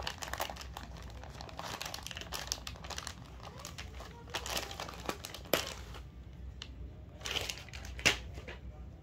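Crinkling and rustling as a lawn suit's cloth and packaging are handled and unfolded, in irregular bursts with a sharp snap about eight seconds in.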